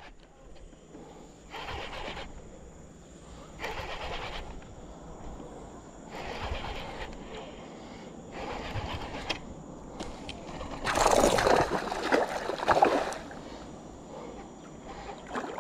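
Baitcasting reel being cranked in short spurts to retrieve a lure, about five bursts of winding a few seconds apart. The longest and loudest burst comes near the end.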